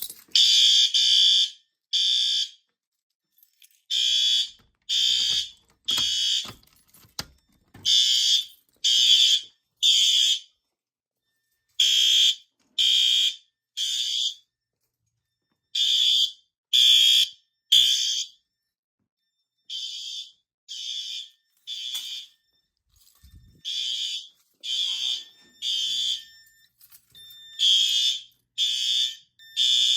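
Ceiling-mount System Sensor SpectrAlert Advance fire alarm horns sounding in the temporal-3 evacuation pattern. Each cycle is three half-second blasts and a pause, repeating every four seconds, starting about a second in.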